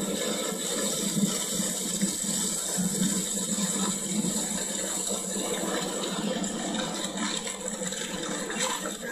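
Glacial meltwater rushing steadily through a channel in the ice, a continuous wash of water noise.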